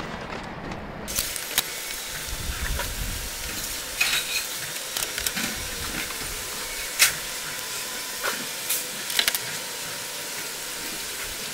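Wet sponge scrubbing the painted steel roof of a narrowboat: a steady wet hiss with scattered sharp clicks and knocks, starting about a second in.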